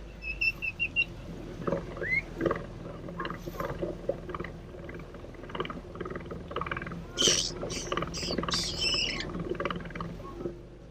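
Pet parrot chattering and squawking in short, sharp calls, with a few loud, shrill screeches between about seven and nine seconds in, over a steady low rumble.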